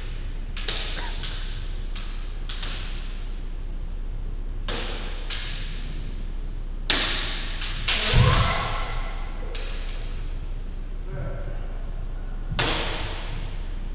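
Bamboo kendo shinai clacking and tapping against each other at irregular intervals during sparring. The loudest crack comes about seven seconds in, followed about a second later by a heavy thud, typical of a stamping foot on the wooden floor, and another sharp clack near the end.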